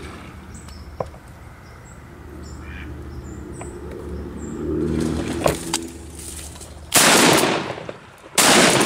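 Two shotgun shots about a second and a half apart, fired at a duck taking off from the pond; the shots drop a drake mallard.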